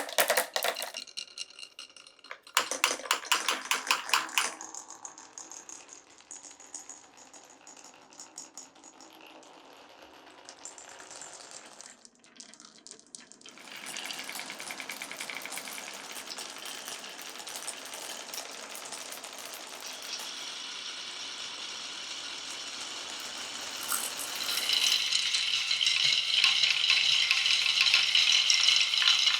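Glass marbles running down a marble run: a quick burst of clicks at the start and a dense run of rapid clicks a few seconds in, then steady rolling that grows louder for the last few seconds.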